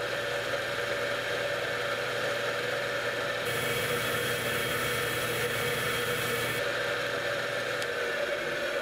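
A belt-driven lubricity tester runs steadily. Its wheel turns through honey against a lever-loaded test bearing, giving a steady whine over a hum. From about three and a half to six and a half seconds in, a harsher rubbing hiss is added.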